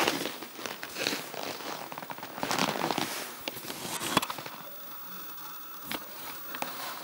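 Close crunching and rustling of someone moving on dry, deep-frozen snow, in irregular bursts about a second apart for the first four seconds or so, then quieter with a few faint clicks.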